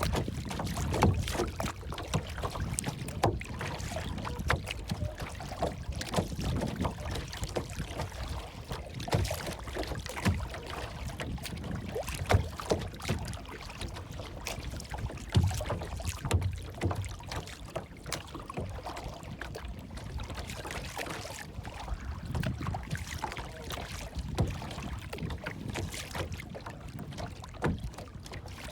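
Water lapping and sloshing, with irregular low thumps and small splashy ticks throughout.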